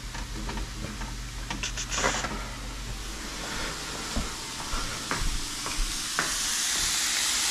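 Ground beef sizzling as it browns in a stainless steel frying pan over a gas flame. The sizzle grows louder about six seconds in, with a few knocks and clicks of handling before that.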